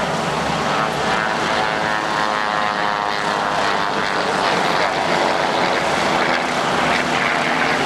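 Radial engines of a Junkers Ju-52 trimotor running steadily as the plane taxis toward the listener: a dense, continuous propeller drone.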